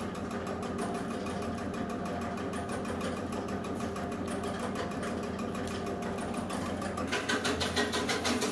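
Areca nut (supari) chip-cutting machine slicing dry nuts: a steady, rapid mechanical clatter that comes from the dry nuts being cut, the machine itself running quietly. The clatter gets sharper and a little louder about seven seconds in.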